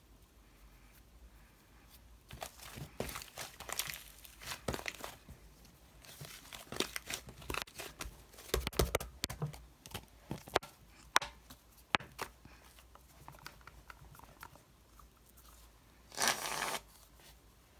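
Irregular crinkling and rustling, like something crumpled or torn by hand, with one longer, denser rustle near the end.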